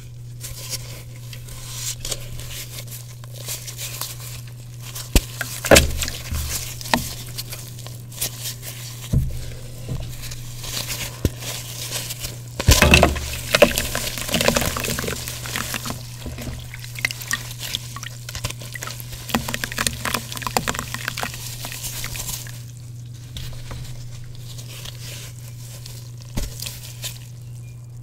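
Water-soaked gym chalk being crumbled and crushed: wet crackling and squishing, with a few louder crunches along the way. A steady low hum runs underneath.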